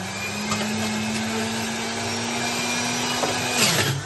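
Electric juicer motor running with a steady hum, climbing back up to speed at the start. About three and a half seconds in its pitch drops sharply with a burst of grinding as a piece of fruit or vegetable is pushed into it under load, then it starts to recover.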